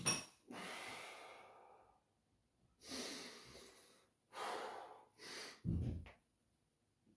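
A man breathing heavily and hard from the exertion of weighted pistol squats: about five loud, rushing breaths, some of them long, fading exhales, with a short, low, forceful puff near the end.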